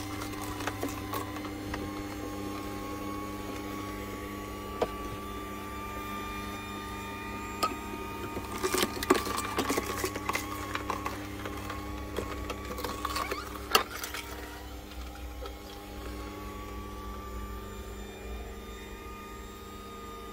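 Electric horizontal slow (masticating) juicer running steadily, with a low motor hum and faint whine. Its auger crushes carrot pieces pushed down the chute, giving scattered sharp cracks and crunches, the loudest about two-thirds of the way through.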